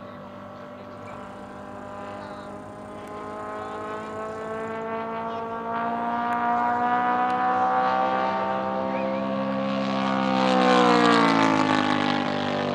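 Gas engine and propeller of a large-scale R/C P-47 Thunderbolt model in flight. The drone grows louder and rises in pitch as the plane closes in, then drops in pitch as it flies past near the end.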